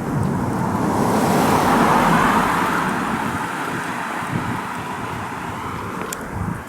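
A car driving past: its road noise swells to a peak about two seconds in, then slowly fades away.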